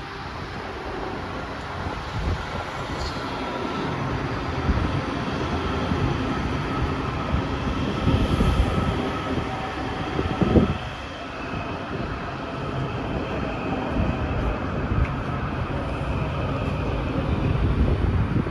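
Washington Metrorail 7000-series Kawasaki train running at the station: a steady rail rumble with a faint whine above it, and a single knock about ten seconds in.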